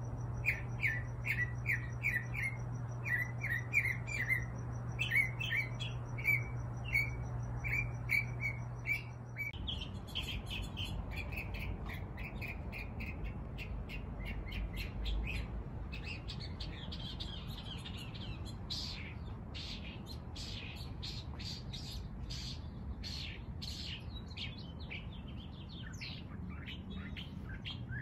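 Small songbirds chirping in quick, repeated short notes, with a steady low hum underneath. About ten seconds in the hum stops and the chirps turn higher and sharper.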